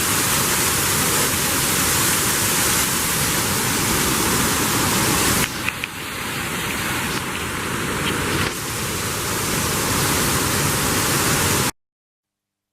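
Waterfall: a steady rush of falling water, dipping briefly about halfway and cutting off suddenly to silence near the end.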